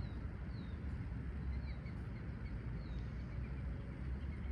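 Outdoor pond ambience: a steady low rumble with a few faint, short, falling chirps of a small bird over it.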